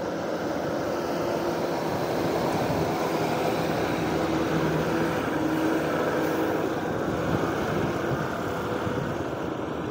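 Diesel engine of an old Ashok Leyland ten-wheel container truck pulling steadily up a ghat climb as it drives close past, with tyre noise on the asphalt. It grows louder toward the middle as the truck passes and then fades as it moves away.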